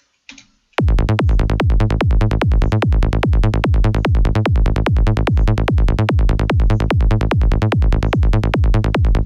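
Dry electronic kick-and-bass pattern from a synth patch with no effects, a fast, even pulse of about four heavy low hits a second, each dropping in pitch, starting about a second in.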